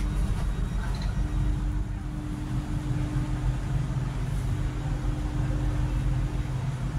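Steady low rumble with a constant hum from a train standing in the station with its equipment running.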